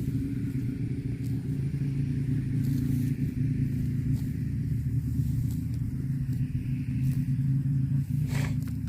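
Steady low engine rumble that runs without a break, with a single short knock near the end.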